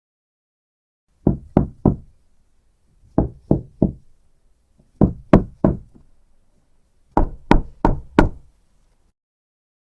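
Knocking on a door: four rounds of knocks with short pauses between them, three knocks, three, three, then four, the later rounds sharper.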